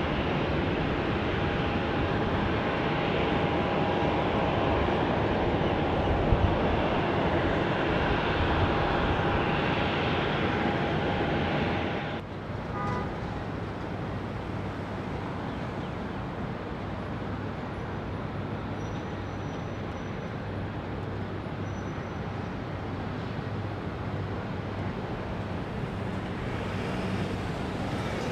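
Jet airliner engines at a distance, a steady rumble with a faint whine, mixed with road traffic; about twelve seconds in it cuts off abruptly to a quieter, steady wash of traffic and distant jet noise.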